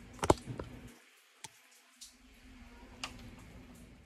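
A few light clicks and taps from plastic wire connectors and inverter-module housings being handled, the sharpest click about a third of a second in.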